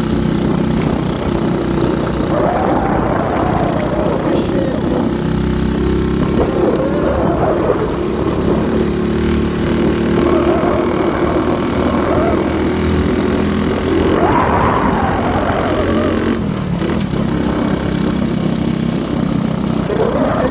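Motorcycle engine running, its pitch rising and falling several times as the throttle is opened and closed.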